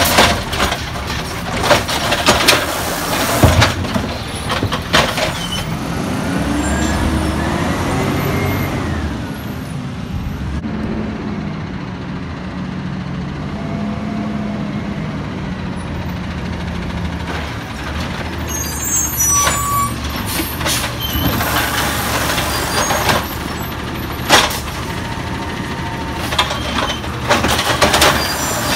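Automated side-loader garbage truck at work: banging and clanking from the lifting arm and emptying carts at the start and again near the end. In between, the Peterbilt 320's natural-gas engine revs with a rising pitch, then runs steadily as the truck moves up to the next carts, with hisses of air brakes.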